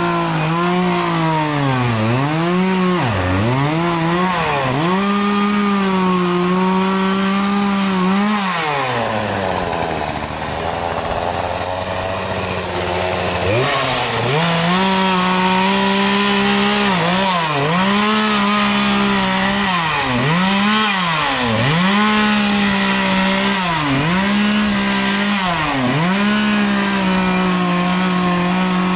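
Two-stroke gasoline chainsaw running at high revs while cutting pine limbs, its pitch dipping sharply again and again. About eight seconds in it drops to idle for a few seconds, then revs back up and keeps cutting.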